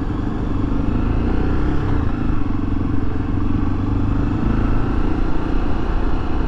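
Honda XRE300's single-cylinder four-stroke engine running steadily at low road speed, heard from the rider's seat.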